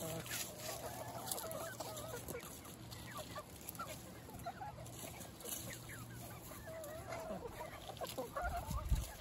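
A mixed flock of Korean native hens and roosters clucking and murmuring in many short overlapping calls while feeding, with a low rumble near the end.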